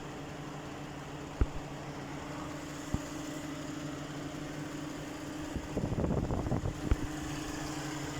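Lexus RX330's 3.3-litre V6 idling steadily after a wire harness and engine computer replacement. A few sharp clicks, and a brief clatter about six seconds in.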